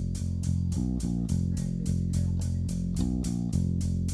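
Background rock music: a low, repeating electric guitar and bass riff with a cymbal struck about four times a second.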